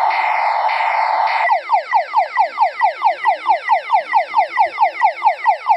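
Electronic alarm siren: a loud buzzy tone with a falling sweep about every half second, switching about a second and a half in to fast falling yelps, about five a second, and cutting off abruptly at the end.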